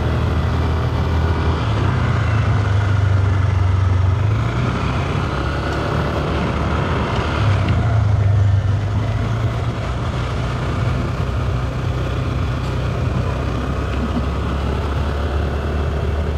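Motor scooter engine running as it rides along at an easy speed, with a steady low rumble that swells a little twice.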